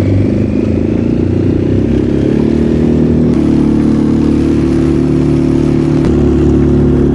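Suzuki 6 hp four-stroke outboard motor running under way, a steady engine note whose pitch steps up slightly about three seconds in.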